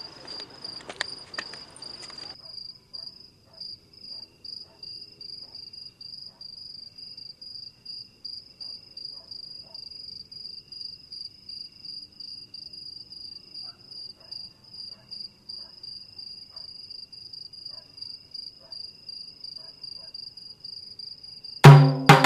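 Crickets chirping in a steady, fast-pulsing high trill, with a few faint clicks of movement in the first couple of seconds. Just before the end, loud music with sharp percussive strokes cuts in.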